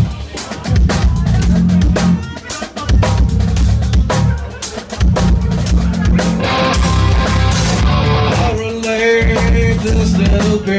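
Live grunge rock band playing an instrumental passage: a drum kit hits hard with bass drum and snare, with electric guitar and bass guitar under it. The drumming breaks off briefly a few times in the first half, and held guitar notes come in over the second half.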